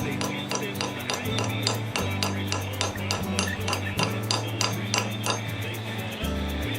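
A steel wedge being tapped into the top of a hickory axe handle, set in the axe head's eye: repeated sharp metallic clinks several times a second, with music underneath.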